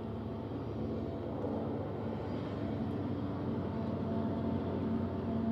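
Union Pacific diesel locomotives hauling a loaded coal train, their engines droning steadily with a low hum and growing slightly louder as they pass.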